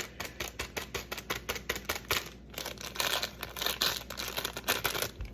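Quick, uneven rattling clicks from a packet of powdered cake mix being handled and shaken.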